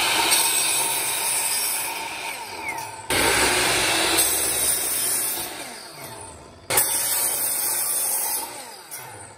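Kobalt sliding miter saw running and cutting through wooden boards, three times over. Each run ends with the motor winding down in a falling whine, and the next starts abruptly.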